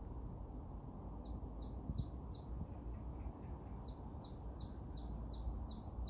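A small songbird singing a repeated note, each a quick high falling whistle with a short higher tick just before it, about two to three notes a second: a run of four about a second in, then a longer run starting near four seconds that carries on past the end. A steady low background rumble lies underneath.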